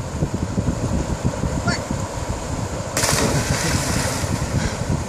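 Two people plunging together into a deep river pool: a sudden loud splash about three seconds in that fades over a second or so, over steady wind rumble on the microphone.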